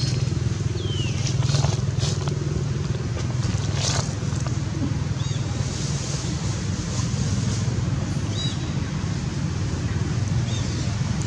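Steady low outdoor rumble, like a motor running nearby. A few short, high, falling chirps sound over it, along with a couple of brief rustles in dry leaves.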